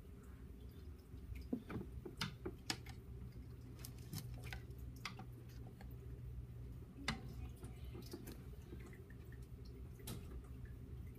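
Water dripping in a turtle tank: scattered, irregular drips and small clicks over a low steady hum, with a faint low tone that comes in about four seconds in and stops near ten seconds.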